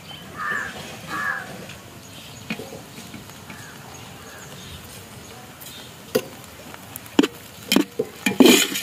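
Steel ladle knocking and scraping against the side of a steel pot while stirring flattened rice, a run of sharp clinks in the last three seconds, loudest just before the end. Two short animal calls sound about half a second and a second in.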